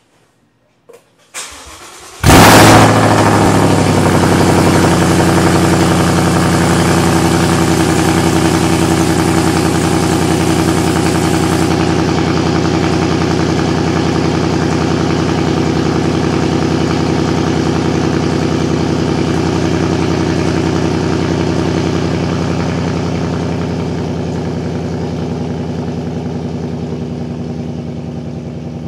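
2015 Mustang GT's 5.0-litre Coyote V8, exhaust running through MAK cat deletes and an MBRP Street system, cold-starting: a moment of starter cranking, then it catches about two seconds in with a loud flare. It settles into a steady fast cold idle that gets gradually quieter over the last third.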